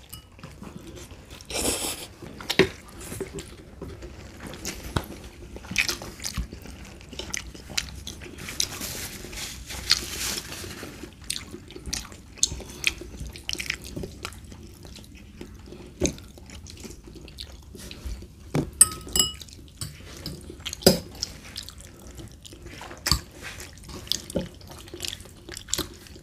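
Eating spaghetti: chewing and slurping of noodles, with scattered clicks of forks against the plate.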